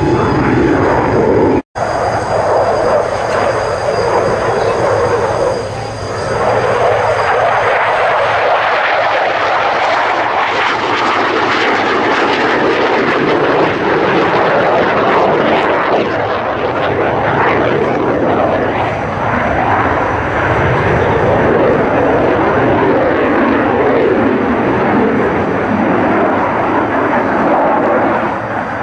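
Loud, steady jet roar of a Saab JAS 39 Gripen fighter's single Volvo RM12 turbofan as it flies a display overhead. The sound cuts out for an instant about two seconds in.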